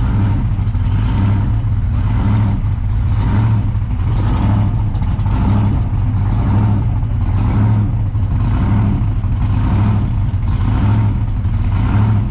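Supercharged 1957 Chevrolet Bel Air gasser's engine running loud and steady while driving, a deep drone with a regular swell about twice a second.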